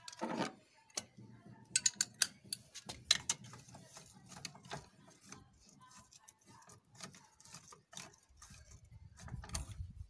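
Ratchet socket wrench clicking in irregular short runs as it tightens the clutch-bell nut on a TVS Ntorq 125 scooter's belt-drive clutch, with metal clinks from the tool and clutch parts.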